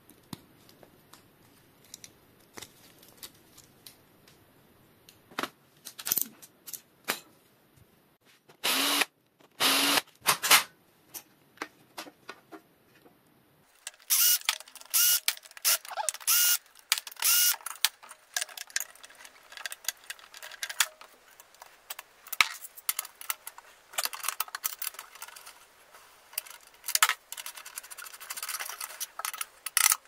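Irregular metallic clicks, taps and rattles of bicycle parts and hand tools being handled, with two short louder bursts about nine and ten seconds in. The clicking grows denser in the second half.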